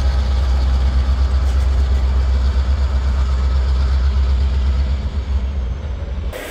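Freight train of covered hopper cars rolling past close by, a steady deep rumble of wheels on rail that eases off as the last cars go by and cuts off suddenly just before the end.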